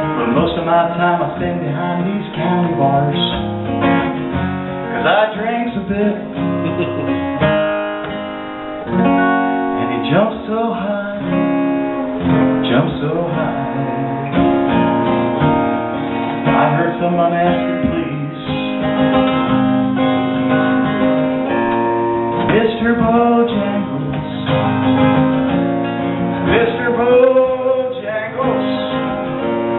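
A live solo acoustic guitar, strummed, with a man singing along into a microphone.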